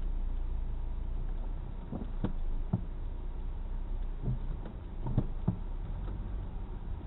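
Steady low road-traffic rumble at an intersection, with a few sharp knocks in two clusters, around two seconds in and again around five seconds in.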